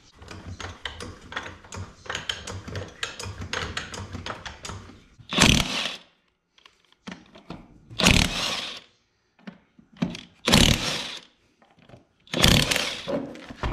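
A DeWalt cordless impact wrench working the lug nuts off an ATV's front wheel. A fast clatter of clicks runs for about five seconds, then the wrench hammers in four short bursts with pauses between them.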